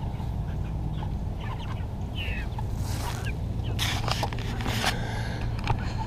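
Meat chickens clucking and calling in scattered short calls, with a few brief noisy rustles near the middle, over a steady low hum.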